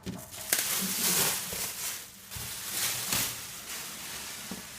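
Packaging rustling and crinkling as it is handled, in irregular rough bursts that are loudest in the first three seconds and then ease off.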